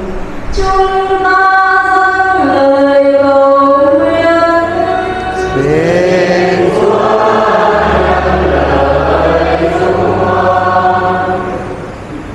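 Church choir singing a slow hymn with long held notes. The singing is thinner at first and grows fuller, with lower voices joining, from about six seconds in, then fades slightly near the end.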